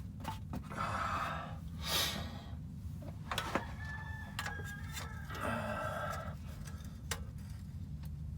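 Spark plug boots being worked off a motorhome engine's plugs by hand. Scattered clicks, short hisses and squeaky rubbery noises sound over a steady low hum.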